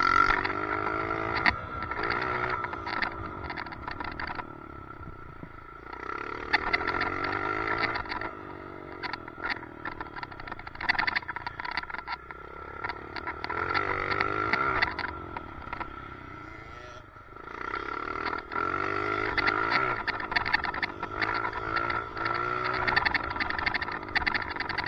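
Dirt bike engine revving up and down in repeated surges every few seconds, with a steady high-pitched whine over it that is blamed on a loose helmet chin mount.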